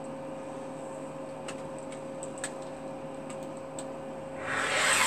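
Folded fabric being cut along a ruler, one cut about a second long near the end, over a steady faint hum with a few light ticks before it.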